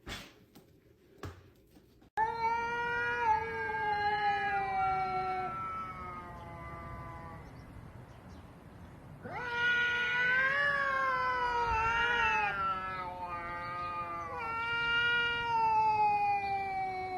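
Domestic cats caterwauling: three long, drawn-out yowls, each several seconds long and mostly sliding down in pitch, starting abruptly about two seconds in. This is the threat yowling of cats squaring off before a fight.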